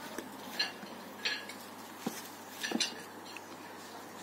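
Scattered light taps and clicks, about five in four seconds: blackberries being picked and dropped into a plastic tray, with the tray knocked as it is handled.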